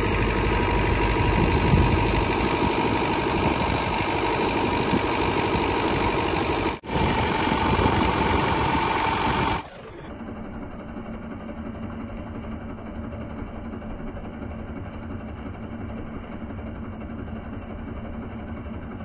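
New Holland tractor engine running steadily as it drives a 14-inch tubewell pump through its PTO, with a heavy jet of water gushing from the pump's delivery pipe. About halfway through the sound becomes quieter and duller, with the engine's steady drone still there.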